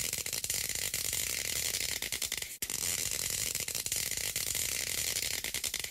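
Electric crackling and buzzing sound effect, like sparks or lightning arcing, with a short break about two and a half seconds in.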